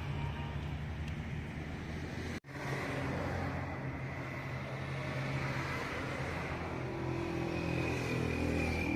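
Car running steadily with a low engine hum and a thin high whine over it, broken by a sudden cut about two seconds in.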